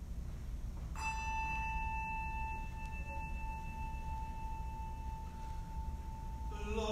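A single struck chime or bell tone: a sharp strike about a second in, then one clear high note that rings on for about five seconds, sounding the pitch just before the chant starts. A chanting voice comes in near the end.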